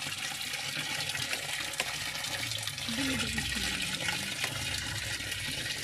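Water running steadily into the tub of an automatic washing machine, fed by a small electric pump from a basin rather than by tap pressure.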